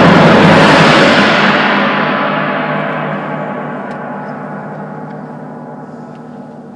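The orchestra's final loud chord ends with a tam-tam stroke. The chord stops about a second in, and the gong's ring dies away slowly over several seconds, its high shimmer fading first.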